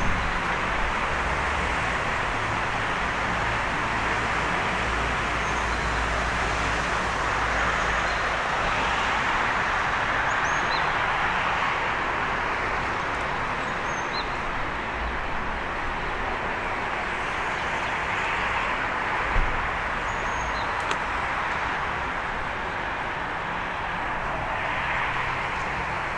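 Steady wash of city traffic noise that slowly swells and eases, with a low rumble underneath. A few faint, brief bird chirps come through it now and then.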